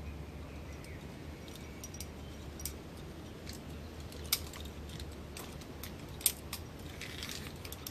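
Metal climbing gear, carabiners and quickdraws, clinking now and then in a few scattered sharp clicks, the loudest about four and six seconds in, over a low steady rumble.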